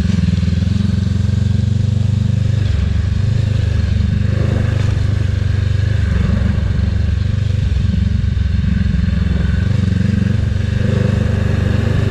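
Honda CB500X's parallel-twin engine running steadily as the motorcycle is ridden along.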